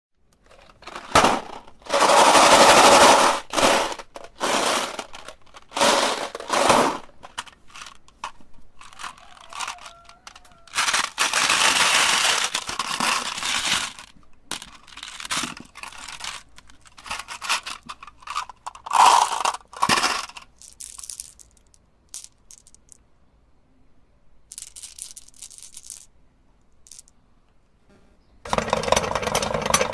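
Repeated loud bursts of cracking and crunching, each one or two seconds long, with quieter gaps; they thin out and fade after about twenty seconds. Near the end an electric meat grinder's motor starts and runs steadily.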